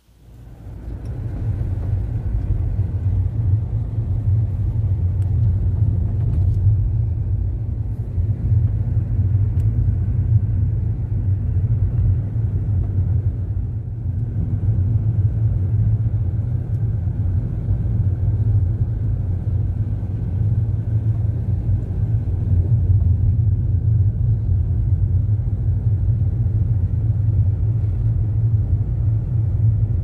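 Steady low rumble of a car driving along a paved road, heard from inside the car, fading in over the first second or two.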